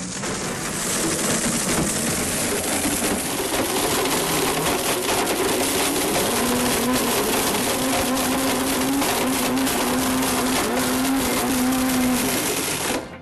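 Blendtec blender running at full speed, grinding an iPhone into black powder in its jar: a dense grinding rush over a steady motor whine that cuts off abruptly just before the end. Heard as playback through a hall's loudspeakers.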